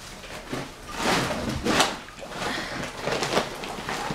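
Plastic shopping bags and grocery packaging rustling and crinkling as they are rummaged through, with a few short knocks; a woven plastic reusable shopping bag is swung up near the end.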